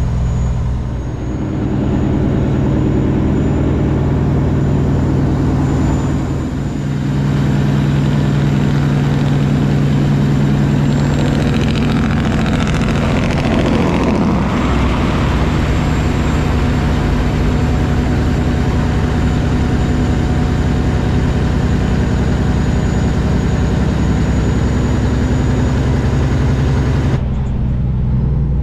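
Kenworth W900 semi truck's diesel engine running steadily at highway speed, with two brief dips in level in the first seven seconds. A rush of noise swells and fades about halfway through.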